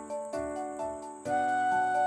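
Background music: soft repeating accompaniment notes, joined a little over a second in by a louder, held flute-like melody.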